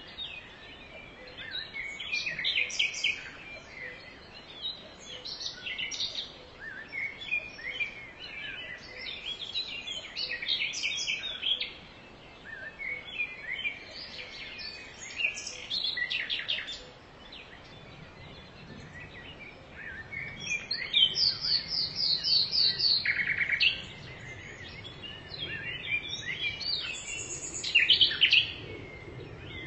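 Several songbirds singing and calling together, overlapping chirps and trills, with a rapid run of repeated high notes about two-thirds of the way in.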